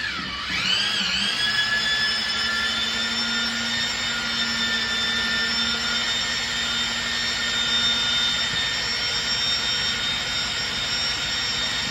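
Powered drywall mud mixer's electric motor whining as it blends joint compound in the box. Its pitch dips and climbs back right at the start as the motor takes the load, then holds steady.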